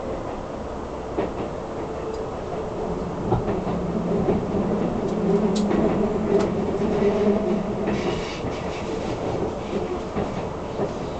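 Keisei Skyliner train running at speed, heard from inside the passenger car: steady rumble and rail noise, with a low hum that swells in the middle and a few sharp clicks from the wheels.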